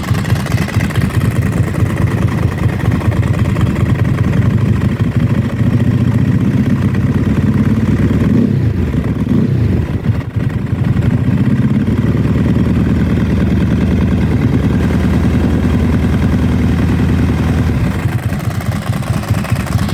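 Ducati 999S L-twin engine idling with its new aluminium dry clutch basket and friction plates: still a dry clutch sound, but solid and not so tinging. About halfway, the engine speed dips and comes back up.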